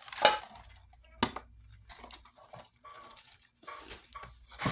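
Handling noise from a diecast model's plastic packaging: scattered clicks and rustles, with a sharp click about a second in.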